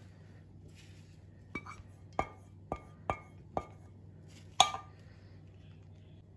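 A non-stick pan knocking against the rim of a ceramic baking dish as the last of a béchamel sauce is scraped out with a spatula: six short, ringing clinks over a few seconds, the last the loudest.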